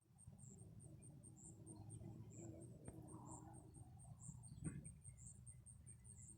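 Faint, steady high-pitched insect chirping, about three to four chirps a second, with a single sharp click about two-thirds of the way through.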